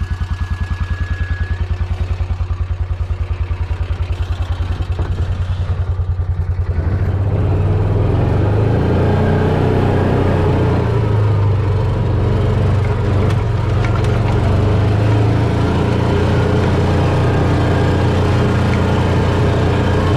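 An engine running at idle with an even low pulse, then brought up to a higher, steadier speed about seven seconds in and held there, louder.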